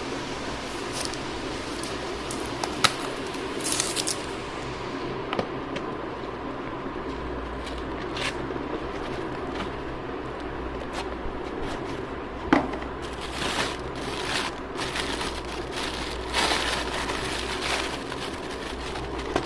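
Wrapper of a 300-wala firecracker garland being opened by hand: crinkling, tearing and rustling with scattered small clicks and scrapes, no bangs.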